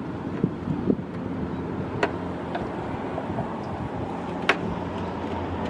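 Plastic push-type rivets on the top edge of a 2008 Cadillac SRX's front bumper cover being pried out with a flat screwdriver, giving sharp plastic clicks, the loudest about 2 and 4.5 seconds in, with a few lighter knocks near the start. A steady low hum runs underneath.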